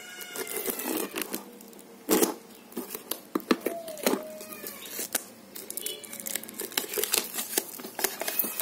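Thin plastic shrink-wrap being torn and peeled off a cardboard box by hand: dense crinkling with sharp crackles, and a few brief squeaky gliding tones near the start and around the middle.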